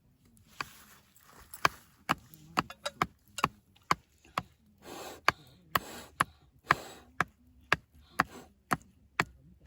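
Repeated sharp chopping knocks on wood, about two a second, with a couple of brief scraping or rustling sounds near the middle.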